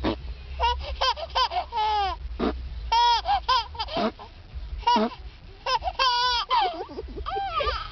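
A high-pitched voice laughing and squealing in many short bursts that rise and fall in pitch.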